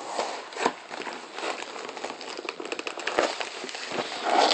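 Packaging being rustled and crinkled by hand while items are taken out, with a run of quick small clicks in the middle and a few louder knocks near the end.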